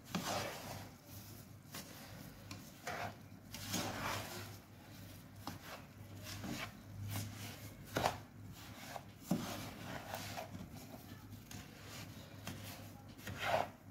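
Black plastic slotted spatula stirring and scraping a crumbly semolina, milk powder, sugar and oil mixture around a non-stick pan, giving irregular scrapes and light knocks against the pan, over a faint steady low hum.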